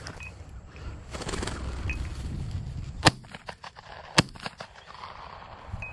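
Two shotgun shots about a second apart, fired at a quail flushed from a bird dog's point.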